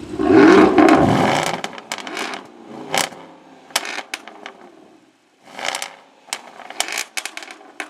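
A sports car engine revs loudly and its pitch falls away, followed by irregular sharp exhaust pops and crackles in several clusters.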